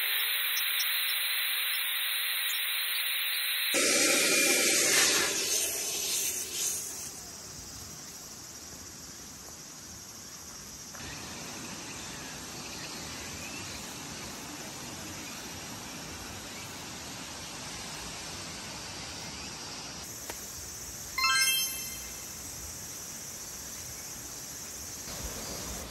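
Air hissing from a pump nozzle into an inflatable sleeping mat, sped up, loudest about four to six seconds in; then a steady faint outdoor hiss, broken by a brief high chirp about three quarters of the way through.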